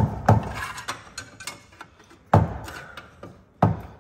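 Four sharp knocks at uneven intervals, each dying away briefly, from work to free the stuck old clutch pressure plate.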